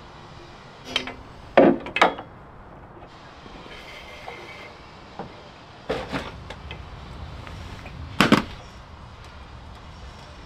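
Knocks and clunks from handling and fitting a bar on the metal engine sled cage. The loudest two come about 1.5 and 2 seconds in, another about 6 seconds in, and a loud double knock near 8 seconds.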